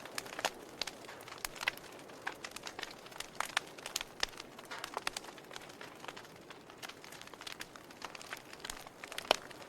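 Wood fire burning in a fireplace: a soft steady hiss under irregular sharp crackles and pops of burning logs, a couple of them louder, about half a second in and near the end.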